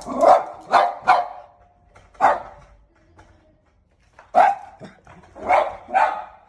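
A dog barking: about seven short barks in uneven groups, three close together at the start, one alone a second later, then three more after a pause.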